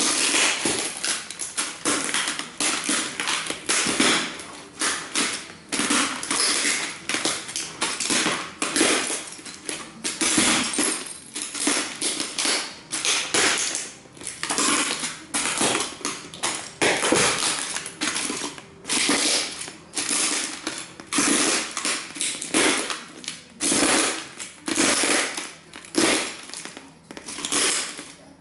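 Cowboy boots stomping and grinding on the crushed remains of model train houses: repeated crunching and crackling of small broken pieces under the soles, a crunch roughly every second.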